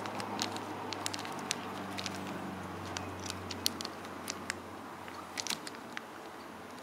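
Small zip-lock plastic bag of rough opal rubs handled and tilted in the hand: irregular light clicks and crinkles as the stones shift inside the plastic.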